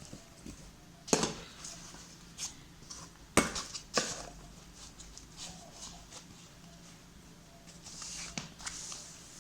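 Stainless steel lunch box containers knocking and clinking against each other as they are packed away: a few sharp metallic knocks, the loudest about three and a half seconds in, with some rustling near the end.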